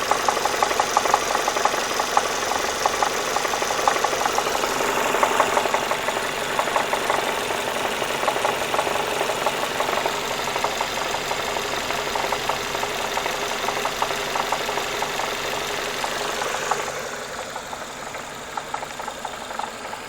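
Renault Mégane II engine running with a rapid, even knocking, which the owner says comes on when the engine is hot. The sound gets quieter about 17 seconds in.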